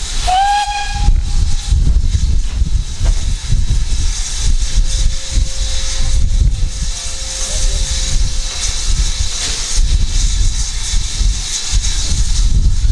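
A steam whistle gives one short blast of about a second and a half right at the start, with a slight upward slide as it opens. A steady hiss of escaping steam carries on over a deep, uneven rumble. A faint, steady second tone sounds in the middle.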